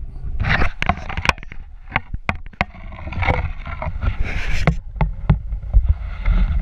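Wind rumbling on an action camera's microphone on a pole, with irregular knocks and clicks and bursts of rustling as the pole is handled on a moving chairlift.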